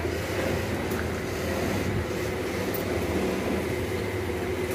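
Steady machine hum: a low drone with a few held tones over an even hiss.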